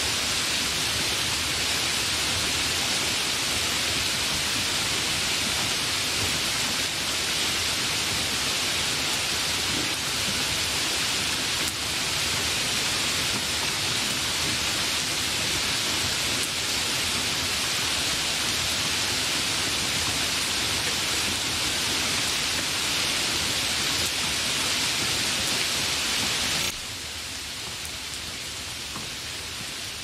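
Heavy rain falling steadily, an even hiss without thunder or other sounds. About 27 seconds in it abruptly becomes quieter, then carries on steadily.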